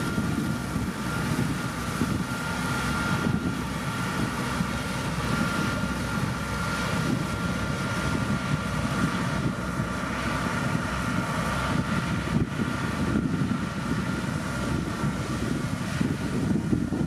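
Heavy diesel road-construction machinery running steadily under load, a deep engine drone with a thin, steady high whine over it.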